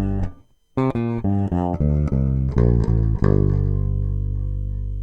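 Closing music of plucked string notes: a quick run of short notes, then a final note held and left to ring out slowly.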